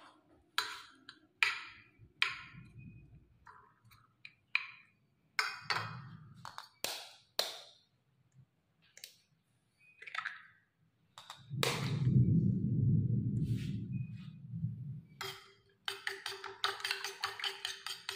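Kitchen utensils and eggshell tapping and clinking on a glass plate: scattered sharp taps and clicks, a low handling rumble near the middle, then fast repeated taps from about two-thirds in as raw eggs with shallots, garlic and chilli are beaten on the plate.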